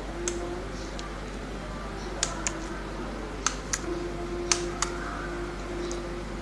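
Slime being squeezed and poked by hand, giving irregular sharp clicks and pops as air pockets burst, about nine of them, over a low steady hum.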